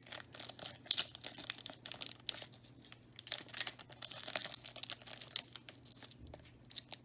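Foil trading card booster pack crinkling and tearing open, with irregular crackling as the wrapper is handled and the cards are pulled out.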